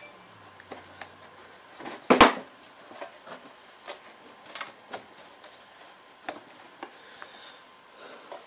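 Scattered plastic clicks and knocks as a strap clip is worked by hand against a Stihl backpack blower's plastic frame, with one loud knock about two seconds in.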